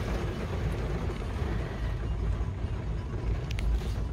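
Steady cabin noise of a car driving through heavy rain: a deep low rumble with an even hiss of rain and wet road.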